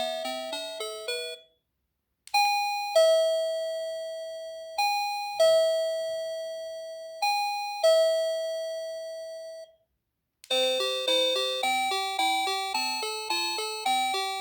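NX-5776-675 doorbell playing its chime tunes. A quick melody ends, then a high-low two-note ding-dong sounds three times, and another fast melody starts near the end.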